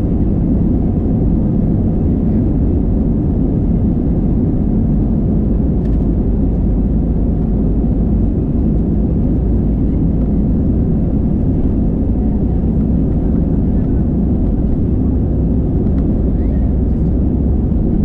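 Airbus A320 heard from inside the passenger cabin: a loud, steady low rumble of engines and airflow.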